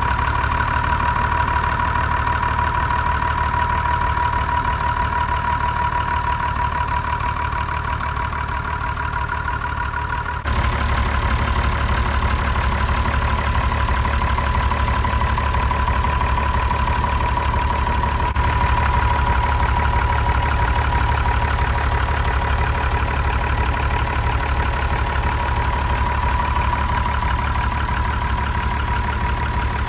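Perkins 6354 six-cylinder diesel idling steadily and evenly, with a steady high whine running through it; it runs smoothly after more than 20 years unused.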